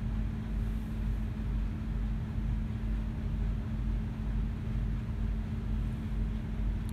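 Steady low hum and rumble of a running motor, with a constant tone and an even level throughout.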